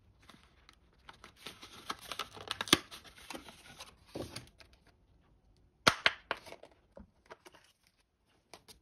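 Plastic and cardboard packaging crinkling and rustling as a small plastic phone-mount adaptor is taken out of it by hand, with several sharp clicks and snaps of the plastic; the loudest snaps come a little after two and a half seconds and around six seconds in.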